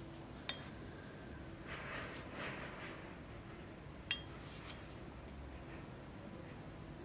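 Two light metallic clinks with a short ring, about half a second in and again about four seconds in, as a steel kukri knife is handled and knocks against metal. Soft rustling in between.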